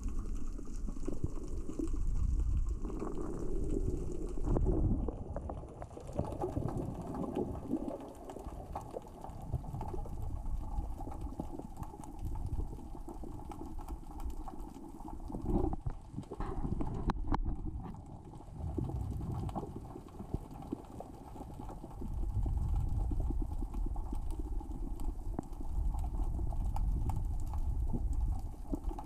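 Underwater sea-floor ambience: a steady low rumble filled with dense, fine crackling and clicking of small rocks rolling across the sea floor as the current and tide move them, growing louder and softer by turns.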